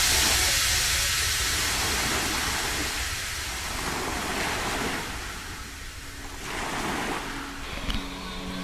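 Steady hiss of rushing, churning water, growing fainter over the first few seconds.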